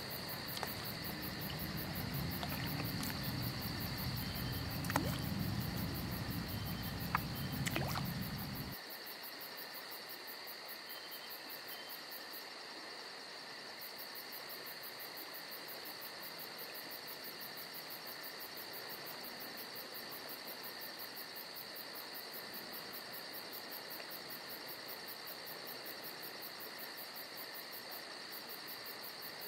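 Crickets chirping steadily in a dense, fast-pulsing chorus. For about the first nine seconds a low rumble and a few sharp clicks sit underneath, then cut off suddenly.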